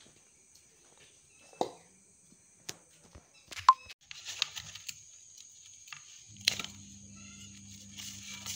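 Knife and fingers cutting and peeling the steamed banana-leaf wrapping of a moode kottige on an aluminium plate: crisp leaf crinkling and tearing, with sharp clicks of the knife on the plate, the loudest about three and a half seconds in. A low steady hum comes in about six seconds in.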